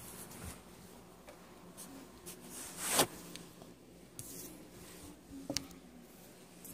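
Phone handling and soft rustling close to the microphone in a small enclosed space, with a louder rustle swelling into a knock about three seconds in and a sharp tap about five and a half seconds in.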